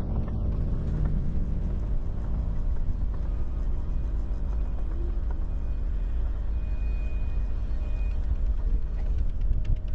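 Sailboat's Volvo Penta inboard diesel engine running steadily under way, a continuous low drone.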